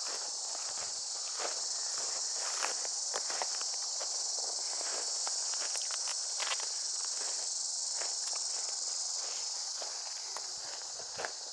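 Footsteps walking along a forest path, a string of irregular short crunches, over a steady high-pitched drone of insects.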